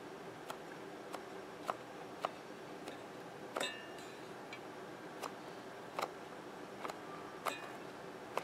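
Irregular light clicks and taps from hands and small tools working on a loudspeaker's foam surround, a few with a short bright ring, over a steady low hum.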